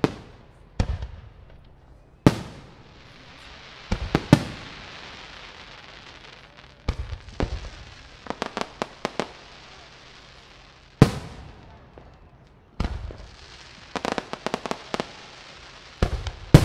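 Aerial fireworks display: shells bursting with sharp bangs every second or few, two rapid clusters of crackling pops, and a steady hiss between the bursts.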